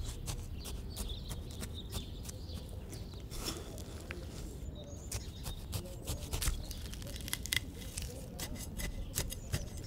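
Hands and a metal garden trowel digging in soil and dry leaves: a continuous scatter of small crunches, crackles and scrapes.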